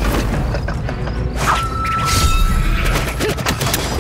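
Action-scene film soundtrack: background music mixed with thuds and a whoosh, with a thin high tone held for about a second and a half starting about halfway in.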